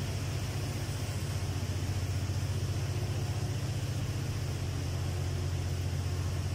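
Steady low machinery hum with a constant hiss behind it, the running noise of industrial plant equipment.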